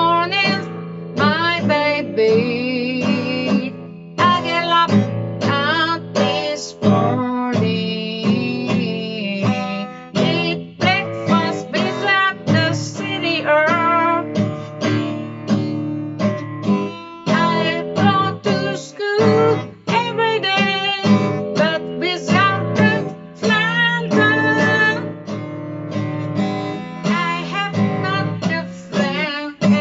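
A voice singing a melody in nonsense pseudo-English over a strummed acoustic guitar.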